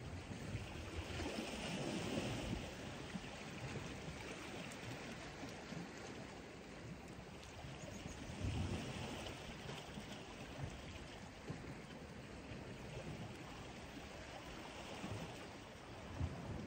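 Sea water washing and sloshing against the rocks, a steady rush that swells up about two seconds in and again around eight seconds.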